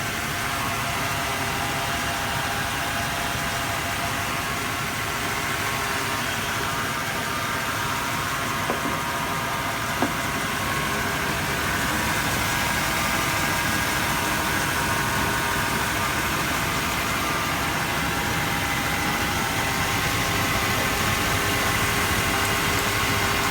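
Chevy 5.0 small-block V8, a newly installed remanufactured long block, idling steadily. Two short clicks sound near the middle.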